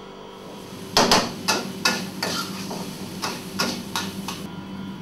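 Repeated sharp knocks of a cook's utensils, about ten strikes at roughly three a second, starting about a second in and stopping shortly before the end, over a steady low hum.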